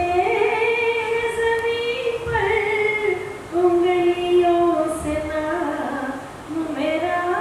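A woman singing a ghazal solo, holding long drawn-out notes that slide from pitch to pitch across several phrases.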